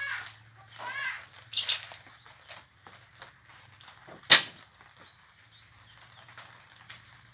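Coconut husk fibre torn away by hand with a loud ripping sound about a second and a half in, then a single sharp thud near the middle as the husked coconut is tossed onto the pile. Small birds give short high falling chirps every couple of seconds, and a bird calls twice at the start.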